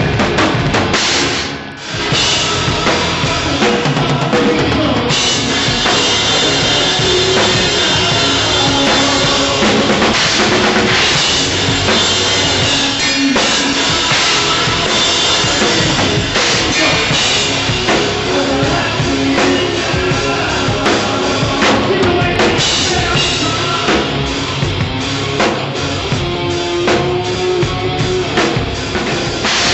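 Rock band playing loudly, with a Tama drum kit up front in the mix: kick drum and snare under steady pitched instruments. The playing breaks off briefly about a second and a half in, then comes straight back in.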